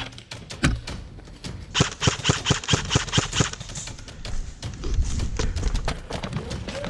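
Airsoft rifles firing: scattered sharp shots, and about two seconds in a quick string of about a dozen shots, roughly six a second.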